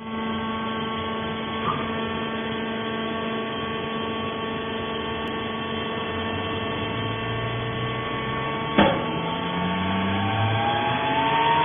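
Steady electric hum with several fixed whining tones from a vertical hydraulic baler's motor and pump unit running without load. A sharp click comes about nine seconds in, after which low tones begin to rise slowly in pitch.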